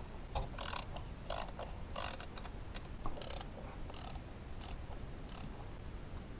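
Hand socket ratchet clicking in short, irregular bursts while the fan fluid coupling bolts are backed out.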